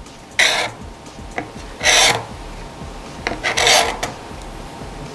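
Chisel scraping the molded plastic feed rib inside a Saiga 12 shotgun magazine body: three hard strokes about a second and a half apart, shaving off molding burrs and high spots so the shells will have clearance.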